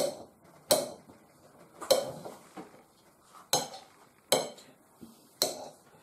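Knife chopping soft shaggy ink cap mushrooms on a ceramic plate, the blade striking the plate with sharp clinks about six times at uneven intervals.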